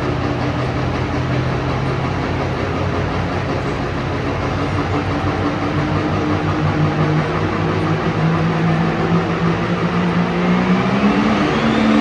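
A pulling tractor's big diesel engine running at the starting line. Its pitch steps up about halfway through and climbs again near the end, with a thin whine rising steadily over the last second or so.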